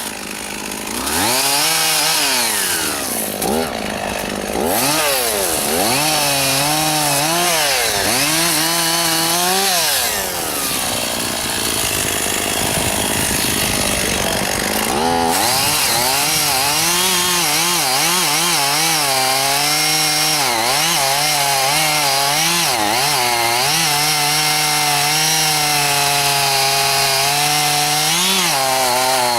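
Chainsaw running through a cut in juniper wood, revving up and down repeatedly at first. From about halfway on it is held at a high, fairly steady speed with small dips under load.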